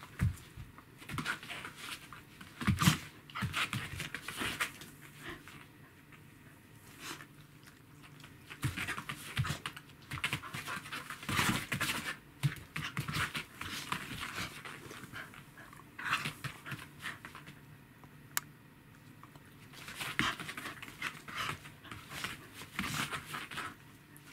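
Welsh corgi panting in irregular bursts during rough play with a cat, mixed with scuffling of paws and bodies on the floor mat.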